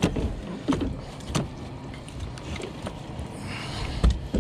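Scattered knocks and clicks of fishing gear being handled in a boat: a few light clunks early on and two sharper knocks near the end, over a low steady rumble.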